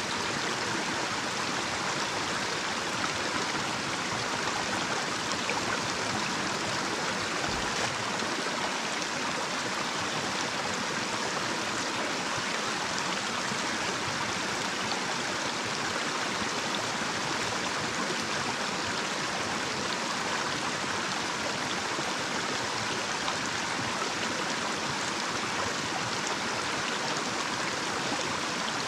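Small, shallow natural stream running over a little cascade: a steady, unbroken rush and babble of flowing water.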